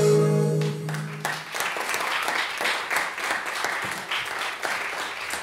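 Recorded music ends on a held note about a second in, and audience applause follows.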